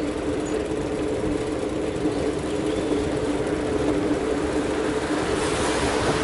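Street traffic heard from a moving bicycle: a steady engine hum over road and wind noise. The noise swells near the end as an oncoming car passes.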